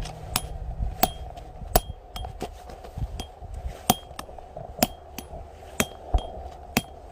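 Repeated sharp metallic clinks, about one a second at uneven spacing, each with a brief high ring of the same pitch.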